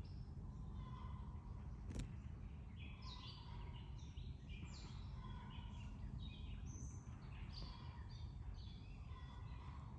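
Several small birds chirping and singing in quick short phrases over a steady low rumble of outdoor background noise, with one sharp click about two seconds in.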